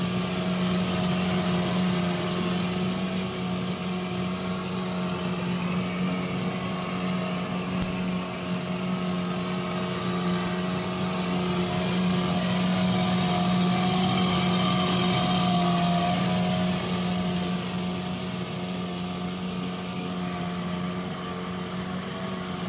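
8 hp Evinrude two-stroke outboard motor running steadily in a test barrel. It runs smoothly with a new fuel pump fitted, after a split fuel-pump diaphragm had been flooding the crankcase and wetting the spark plug.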